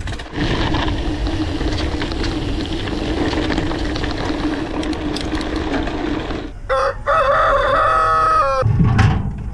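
A rooster crows once, about seven seconds in, a wavering call lasting about two seconds. Before it, a steady rushing noise.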